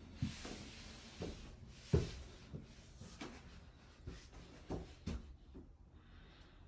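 Footsteps climbing a staircase: a run of soft thumps, about two a second, with one sharper knock about two seconds in.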